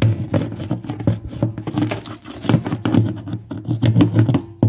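A bung wrench working the screw cap of an ice-crusted steel oil drum: a dense, irregular run of crunching, cracking ice and scraping metal, over a steady low tone.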